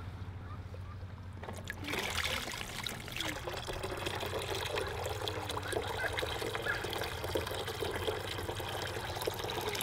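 Pond water being poured from a bucket into the goldfish's container, a steady trickling pour that starts about two seconds in.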